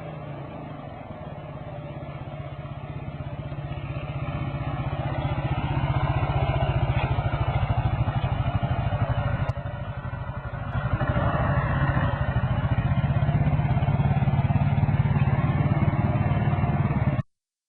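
Motorcycle engine running steadily while riding, growing louder over the first few seconds, with a short drop about ten seconds in; it cuts off abruptly near the end.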